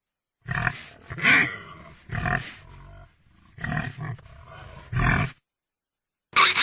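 Pig grunting: about five short, deep grunts, roughly a second apart. After a pause, a louder, high-pitched squeal starts just before the end.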